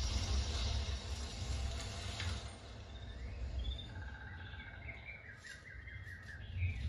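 A film's nature soundtrack with bird chirps, played through a home theater of Bose Acoustimass 10 Series III speakers and a Klipsch SPL-150 subwoofer and heard in the room. A deep low rumble from the subwoofer runs underneath, with a swish about two seconds in and a run of quick chirps from about halfway on.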